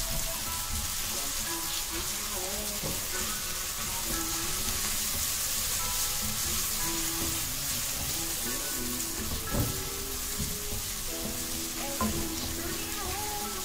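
Sliced onions frying in hot mustard oil in a non-stick wok, with a steady sizzle as they are stirred with a wooden spatula and are cooked toward light brown. A couple of sharper knocks of the spatula on the pan come near the end.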